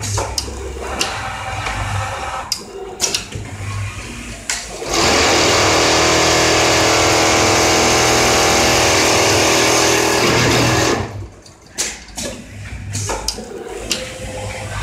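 Richpeace automatic template sewing machine stitching at speed: a loud, steady running sound that starts about five seconds in and stops about six seconds later. Scattered clicks and clatter from the machine come before and after it.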